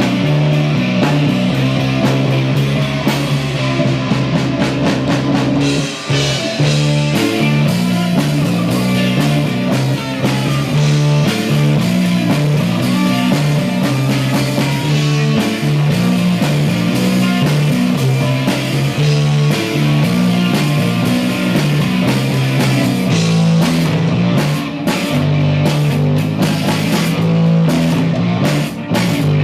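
Rock band playing live: guitar and drum kit over a low, stepping bass line, with the drum hits sharper in the last few seconds.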